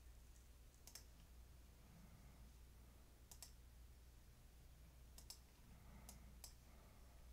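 Near silence with about five faint, short clicks scattered through it from operating a computer while the chart is changed and zoomed, over a low steady hum.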